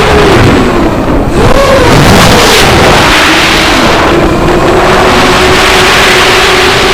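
FPV racing quadcopter's motors and propellers whining up close under a heavy rush of air noise. The pitch drops and swoops back up about a second in as the throttle changes, then holds nearly steady.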